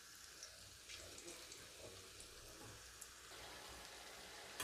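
Marinated chicken pieces deep-frying in hot oil in a kadai: a faint, steady sizzle with scattered small crackles.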